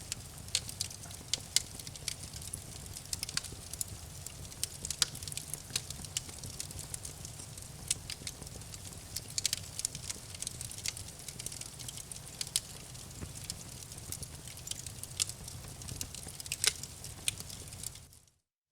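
Campfire crackling: irregular sharp pops and snaps of burning wood over a steady low rumble. The sound fades to silence for a moment near the end.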